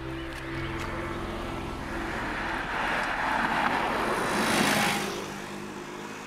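A motorcycle approaching and passing close by on the road, its noise swelling to a peak a little after four seconds in and then fading away.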